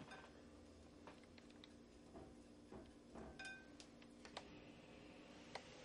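Near silence, with a scattering of faint clicks and taps from beef skewers touching the dish as they are lightly dipped in a dry paprika coating.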